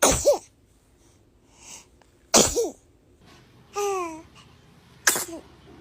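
A baby sneezing three times, a couple of seconds apart. Each sneeze is a sudden sharp burst ending in a short high squeak of voice. Between the second and third sneeze comes a brief high baby vocal sound that falls in pitch.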